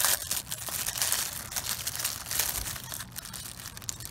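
Clear plastic bag crinkling and rustling as it is handled and opened, loudest at the start.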